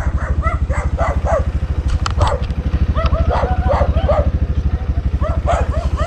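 Suzuki GZ150 single-cylinder four-stroke motorcycle engine running steadily, with a dog barking repeatedly over it.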